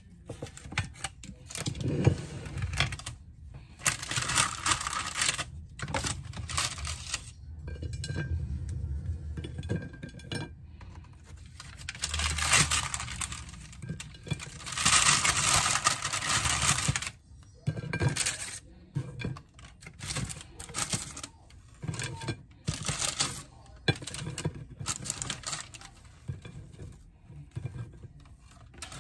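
Cookies being lifted by hand off a paper-lined baking tray and set down on a ceramic plate: a run of irregular scrapes, paper rustles and light clinks, loudest in a few longer bouts through the middle.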